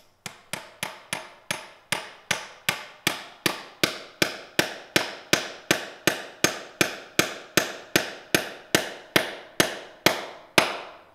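Claw hammer driving a 16-penny duplex nail through a board into a quarter-inch oak dowel set in a hole in concrete. It strikes in a steady run of about three blows a second, each a sharp hit with a short ring.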